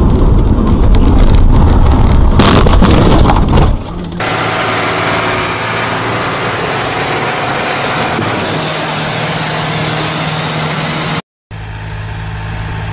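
Vehicle engines across a run of short clips: loud, rough engine noise with clattering for the first few seconds, then an engine running steadily with a hiss, and after a brief dropout another engine running with a steady low hum.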